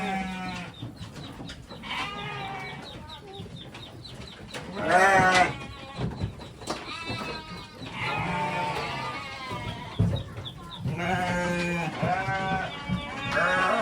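Goats bleating repeatedly, several wavering calls one after another. The loudest call comes about five seconds in, and a run of calls fills the last few seconds.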